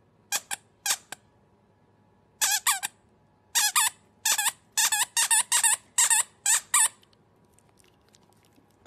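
A dog chewing a squeaky toy ball: a run of short, high, wavering squeaks in quick clusters, stopping about seven seconds in.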